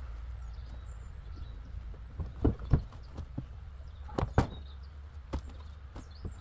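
Irregular knocks and thuds of objects being handled while a pallet of plastic containers and garden supplies is unloaded, about nine in a few seconds, the loudest pairs a little before the middle and just after it.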